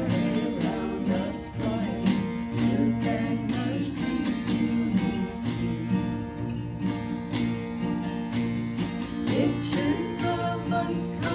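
Mountain dulcimer and guitar playing a tune together, strummed in a steady rhythm over sustained low notes.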